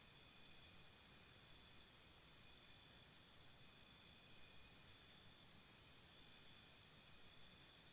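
Near silence with insects chirping faintly in the background, a high pulsing chirp that becomes steadier and a little louder about halfway through, a few pulses a second.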